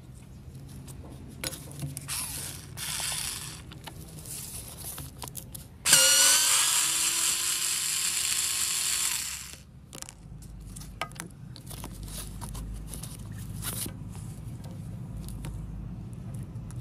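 Cordless drill-driver unscrewing the housing screws of an old angle grinder: about six seconds in its motor whirs up quickly and runs for about three and a half seconds. Around it are light clicks and clatter from handling the grinder's parts.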